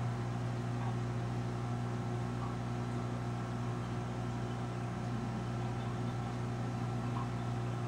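Steady low electrical hum with a constant hiss from the reef aquarium's running pumps, unchanging throughout.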